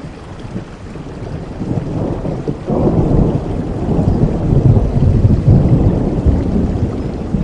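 Steady rain with a low roll of thunder that swells suddenly about three seconds in and slowly eases toward the end.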